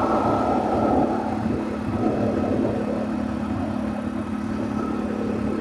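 Motorcycle cruising at highway speed: a steady engine hum under continuous wind and road rumble.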